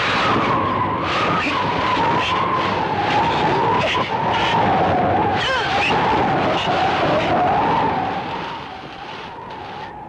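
A high wavering whine, a sustained film sound effect, held almost without a break over a rushing noise that surges in short pulses. It fades near the end.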